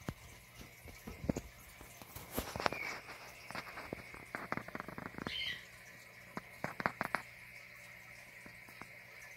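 Steady low hum and a thin high whine from the aquarium's bubbling air supply, with a run of irregular sharp clicks and taps through the middle that die away after about seven seconds.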